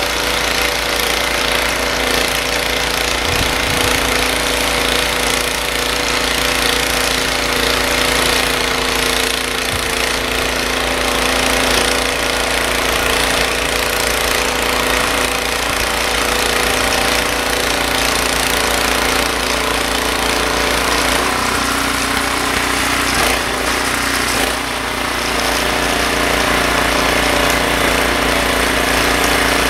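Ariens Deluxe 30-inch snowblower's 306 cc engine running steadily while clearing snow. There is a brief dip in level about three-quarters of the way through.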